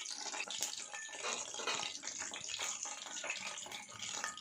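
Masala-coated chicken pieces deep-frying in hot oil: a steady sizzle with dense fine crackling.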